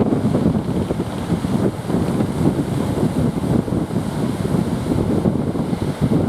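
Wind buffeting the microphone: a loud, gusty low rumble, with ocean surf beneath it.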